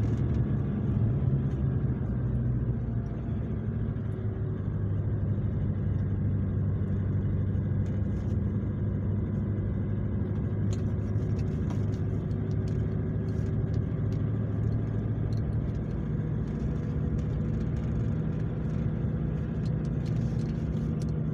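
Steady drone of a vehicle's engine and tyres at an even speed, heard from inside the cab, with a few faint light ticks.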